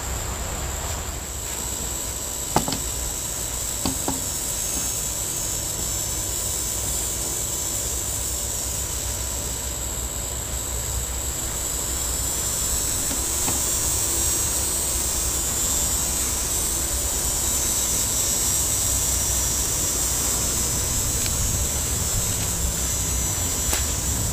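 Steady outdoor summer ambience: a continuous high-pitched insect drone over a low rumble, with a couple of short clicks a few seconds in.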